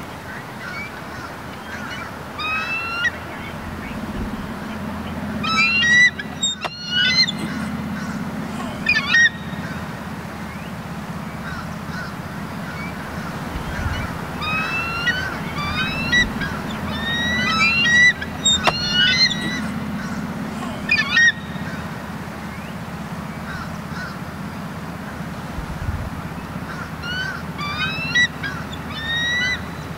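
Bald eagles giving high-pitched chittering calls, short runs of quick squeaky notes repeated in several bursts, over a steady low hum.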